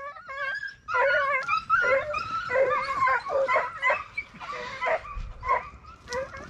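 A pack of hunting hounds yelping and baying, many short, wavering cries overlapping one another without a break.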